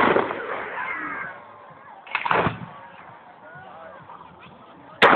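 Fireworks shells bursting overhead: a sharp bang at the start, a longer burst lasting about half a second around two seconds in, and another sharp bang near the end.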